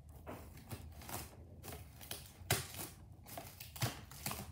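Plastic cling wrap being handled: irregular crinkling and rustling with short crackles, the loudest about two and a half seconds in and again near the end.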